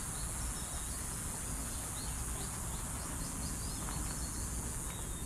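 Outdoor garden ambience: a steady high-pitched drone, like insects, over a low rumble, with a few faint bird chirps.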